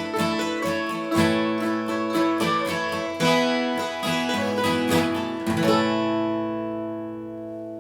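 Acoustic guitar playing the song's closing bars in steady strokes, then a final chord struck about two thirds of the way in and left to ring and fade.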